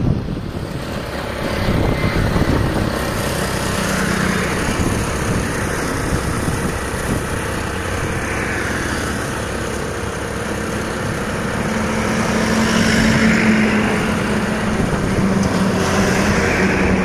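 Road traffic: vehicles passing with tyre and engine noise, and a steady low engine hum that grows louder in the second half as a heavy vehicle comes close.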